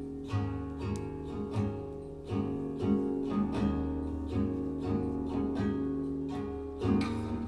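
Acoustic guitar intro, plucked notes and chords coming about every half second over ringing bass notes, played back through Grandinote Mach Nine floor-standing loudspeakers in a hi-fi demonstration room.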